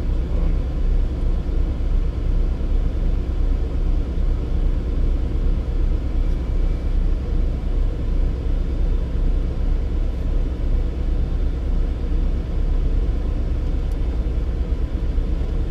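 Steady low rumble of a car heard from inside the cabin: engine and body noise, with no change through the stretch.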